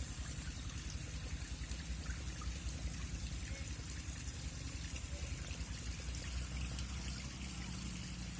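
River water flowing and trickling steadily, with a low rumble underneath.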